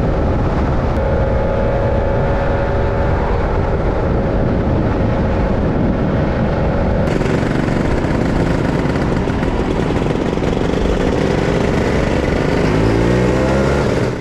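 Scooter engine running under way with heavy wind rush over the microphone. About halfway through the sound changes abruptly. Near the end the engine note rises as it accelerates, then the sound cuts off suddenly.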